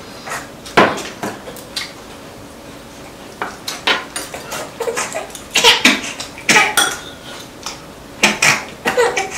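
Chopsticks and spoons clinking and tapping against bowls and plates during a meal, in scattered sharp clicks. There is one strong click about a second in, then a short lull, and the clicks come thicker through the second half.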